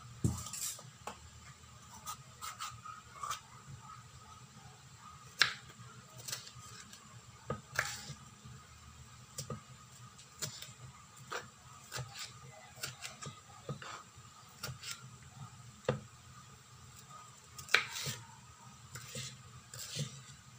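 Kitchen knife slicing a red bell pepper on a wooden chopping board: irregular taps and knocks of the blade striking the board, a few of them sharper and louder.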